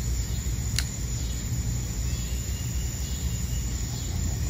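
Steady low rumble of outdoor background noise, with a faint high insect trill at times and a single short click about a second in.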